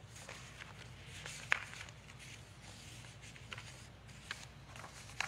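A few faint, scattered clicks and rustles of handling over a steady low hum. The sharpest click comes about a second and a half in.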